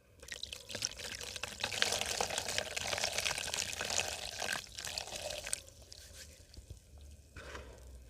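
Dry cement crumbled and poured into water: a hissing pour dotted with small crackles for about five seconds, then a short second pour near the end.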